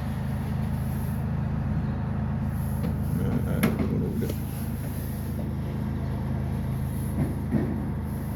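Steady low mechanical hum, like a running motor, with a sharp click about three and a half seconds in and a couple of faint knocks near the end.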